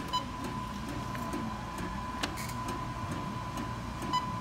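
Walmart photo kiosk printer printing pictures: a steady machine sound with a constant high-pitched tone, and a short blip near the start and again near the end.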